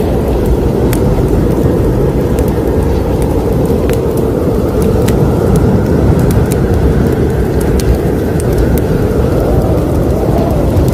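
Wood fire burning in a fireplace: a steady low rumble with scattered sharp crackles.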